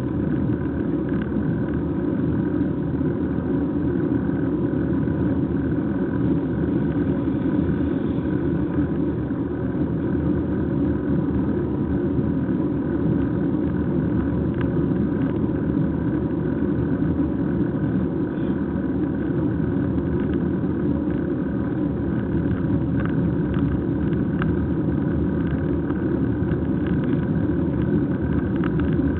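Steady wind rush and road rumble on the microphone of a camera riding on a moving bicycle, with occasional faint rattling clicks.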